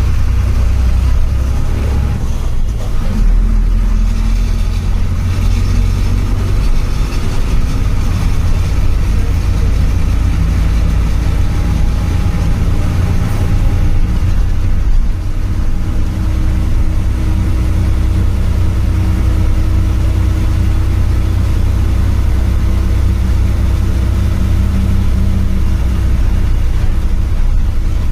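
Bus engine running under way, heard from inside the driver's cabin: a steady, loud, deep drone whose engine note shifts a little as it goes.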